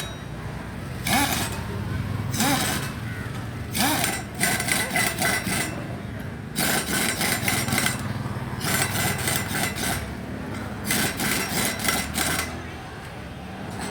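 An impact wrench working the motorcycle's chain-kit fasteners in repeated bursts: three short spins, then four longer runs of rapid hammering, each a second or more.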